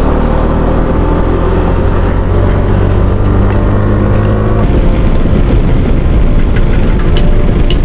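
KTM 390 Duke's single-cylinder engine running at road speed under heavy wind rush on the microphone. Its steady note shifts a little past halfway, and a couple of sharp ticks come near the end.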